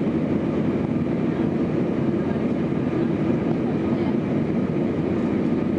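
Steady low rumble inside an Airbus jet airliner's cabin: engine noise and airframe rumble at an even level, without rising or falling.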